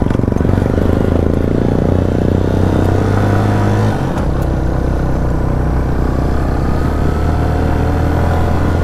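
Suzuki GS 150 SE's single-cylinder four-stroke engine pulling the motorcycle up a steep cemented track, a steady drone whose pitch steps down about four seconds in.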